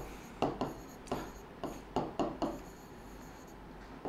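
Stylus tapping and sliding across the glass screen of an interactive display as numbers are handwritten: a run of short strokes over the first two seconds or so, then quieter.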